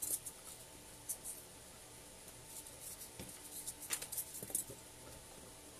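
Faint scattered taps, clicks and scratchy rustles of hands handling craft materials on a worktable.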